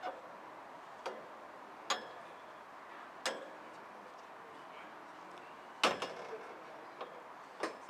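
A few scattered sharp clicks and knocks at irregular intervals over a faint steady hiss, the loudest about six seconds in.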